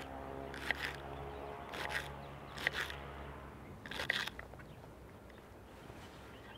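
Chef's knife slicing crisp snow peas on a wooden cutting board: about four short crunchy cuts spread over the first four seconds, over a faint low hum.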